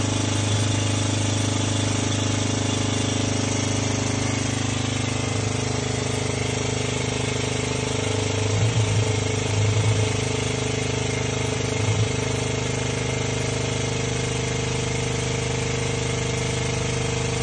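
Air/hydraulic pump running steadily, driving the hydraulic ram of a Tubela Model 3 tube bender as it bends a 42.4 mm steel tube sleeved with 33.7 mm tube. A few brief louder pulses come about halfway through and again a little later.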